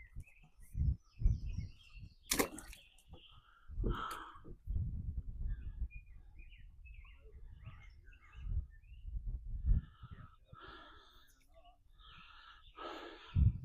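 Scattered low thumps and knocks from handling fish and gear in a small boat, with one sharp click about two and a half seconds in. Birds chirp faintly in the background.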